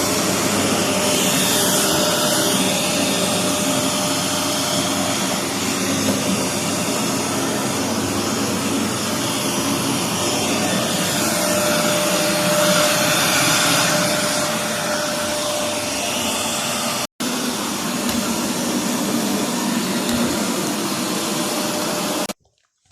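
Bush bagless cylinder vacuum cleaner running steadily at full suction, a dense whoosh with a faint steady whine in it. It drops out for a split second about two-thirds of the way through and cuts off suddenly near the end.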